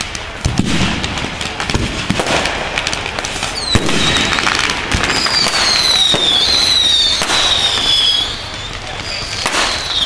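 Aerial fireworks going off: a continual run of bangs and crackles, with high whistles that slide down in pitch through the middle and again near the end.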